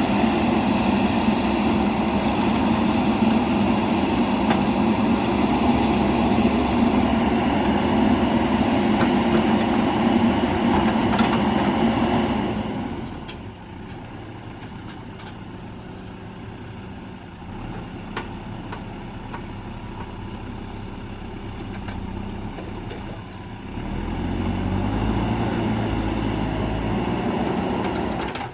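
Heavy diesel engine of a JCB backhoe loader running loud and steady, then dropping to a quieter run about twelve seconds in; near the end it revs up again.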